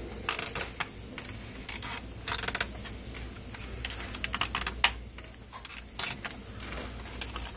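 Irregular light clicks and taps of small hand work on a plastic instrument cluster as the gauge needles are twisted off with a needle removal tool, over a low steady hum.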